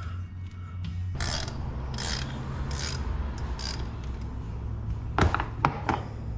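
Hand ratchet with a 15 mm socket working the valve cover bolts on a 12-valve Cummins, undoing them to take the valve cover off. It makes several short runs of ratchet clicking, then a few sharp clicks near the end.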